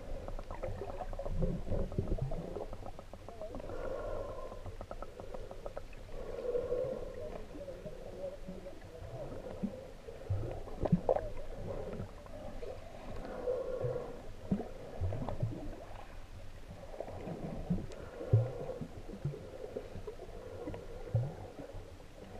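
Underwater sound picked up by an action camera held below the surface: muffled water movement with scattered low knocks, and a dull murmur that swells every three to four seconds.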